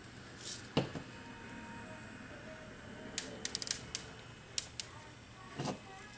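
Tiny sugar pearls dropped onto soap cupcakes, a quick cluster of sharp little clicks about three seconds in and two more just after, as they hit and bounce on the frosting and tray. A couple of duller soft knocks about a second in and near the end.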